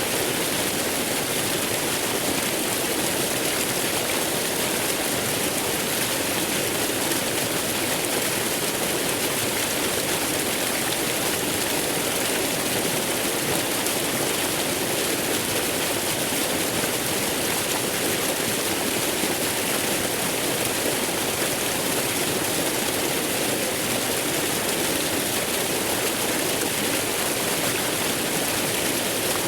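Waterfall rushing in a steady, unbroken roar of falling water, with no rise or fall in level.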